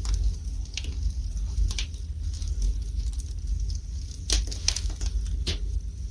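Wood fire burning in a fireplace, with irregular crackles and sharp pops over a low steady rumble. The loudest pops come in a cluster a little past four seconds in and once more about five and a half seconds in.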